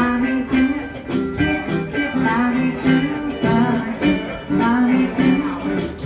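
Live band music: guitars playing over a steady drum beat.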